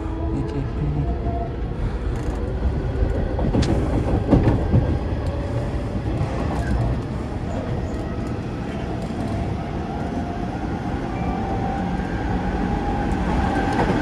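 Hanshin 9000 series electric train heard from inside, gathering speed out of the station: a steady rumble of wheels on rail, with a short burst of clatter about four seconds in. Through the second half a motor whine climbs slowly in pitch.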